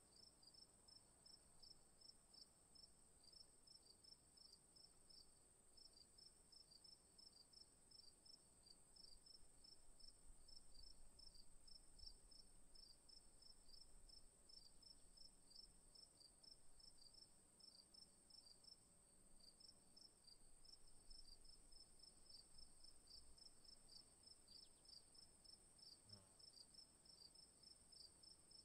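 Faint evening insects chirping: a steady high-pitched trill together with a quick, even run of short chirps.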